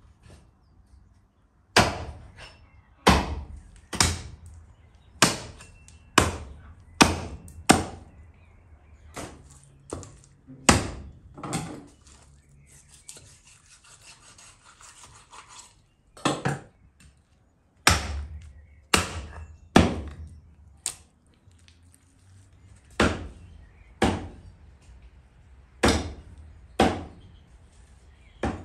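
Hatchet chopping through beef leg meat and bone on a wooden stump block: about twenty heavy chops, roughly one a second, with a pause of a few seconds in the middle.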